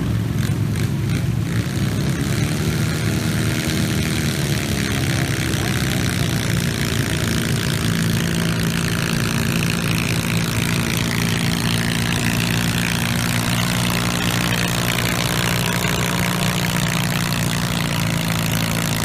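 Garden tractor engine running hard under load while pulling a weight-transfer sled, a loud, steady drone.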